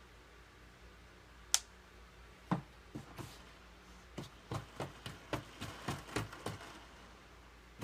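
Light clicks and taps of a yo-yo and its bearing being handled during lubing: one sharp click about a second and a half in, then a run of short taps, about three a second, in the second half.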